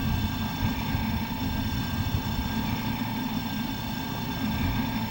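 An engine running steadily at idle: an even low rumble with a faint steady whine above it.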